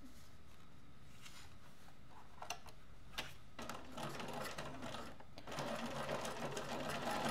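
A computerized sewing machine top-stitching through fabric and vinyl: after a couple of light clicks, it starts stitching about halfway through and runs louder near the end.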